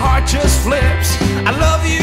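A song playing: a strong, steady bass line under a melody with sliding, bending notes.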